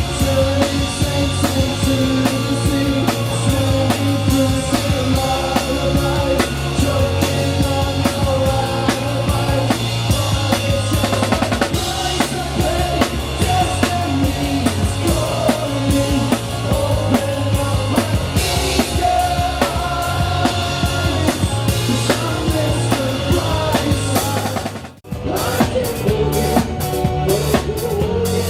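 Band music with a prominent drum kit beat of bass drum and snare. About 25 seconds in it cuts out for a moment, and another passage of drum-led music starts.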